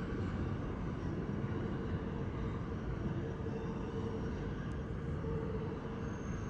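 New York City subway train pulling away into the tunnel: a steady low rumble of wheels on rail, with a faint held tone in it.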